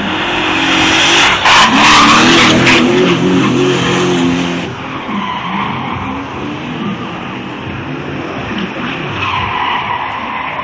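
A drifting car's engine revving hard while its tyres squeal and skid sideways. It is loudest for a few seconds starting about a second in, then drops to a lower engine note with lighter tyre noise as the car moves away across the lot.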